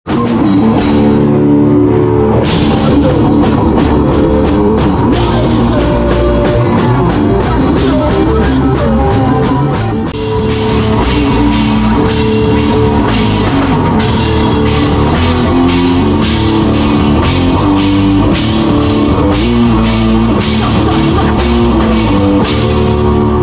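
Live rock band playing loud instrumental rock: electric guitars over a drum kit, with no singing.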